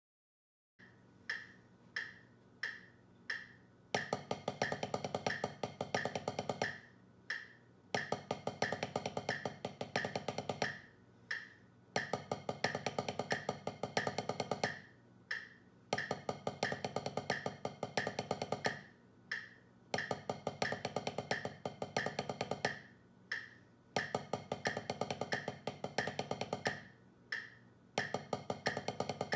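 Wooden drumsticks playing fast, even single strokes on a rubber-topped drum practice pad, in repeated phrases of about three seconds with short gaps between them. Under them runs a metronome click at 90 beats per minute, which first counts in alone for a few clicks.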